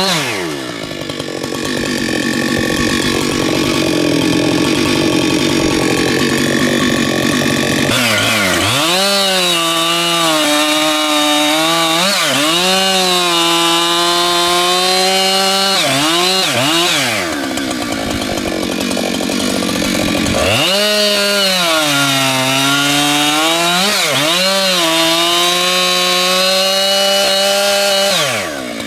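Husqvarna 592XP two-stroke chainsaw engine running. It settles to a lower, rougher run for the first several seconds, then goes up to high revs with the pitch sagging and recovering several times. It drops back for a few seconds past the middle, revs up again, and falls off near the end.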